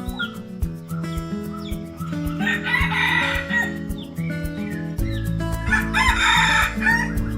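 Roosters crowing twice, about two and a half and five and a half seconds in, with small bird chirps, over background music with a steady beat.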